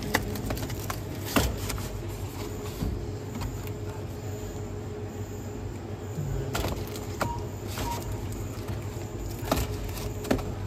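Steady low hum of shop refrigeration, with a few sharp clicks and taps as cardboard ready-meal boxes are handled in a freezer.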